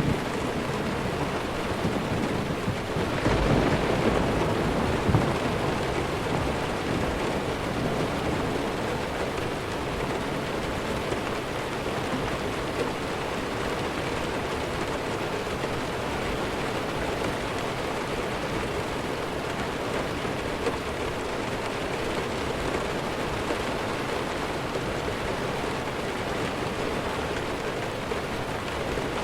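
Steady rainfall with a low rumble of thunder about three to five seconds in, after which only the even rain continues.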